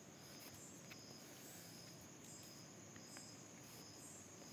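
Near silence: faint room tone with a faint high chirp repeating about twice a second.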